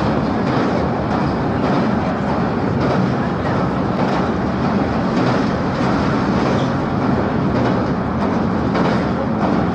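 Passenger train running at speed, heard on board: a steady rumble of wheels on rail with faint clicks as the wheels pass rail joints.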